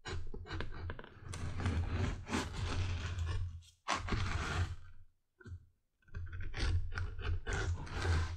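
Edge beveler scraping along the cut edges of a stitched, tooled leather holster in a run of short strokes, with a pause about five seconds in. A low steady hum lies underneath.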